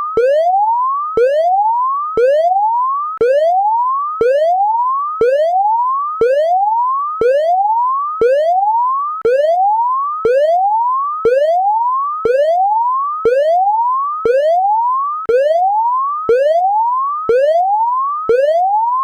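Electronic whooping alarm: a loud tone sweeping upward over about a second, then snapping back down with a click and starting again, about once a second.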